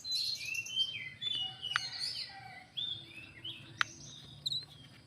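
Small birds chirping and twittering, with many short, high calls overlapping, and a few sharp clicks among them.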